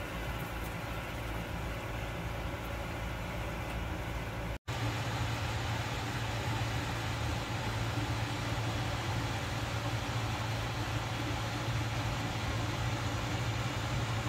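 Steady low hum and whir of a kitchen appliance running. It cuts out for an instant about four and a half seconds in, then carries on a little louder.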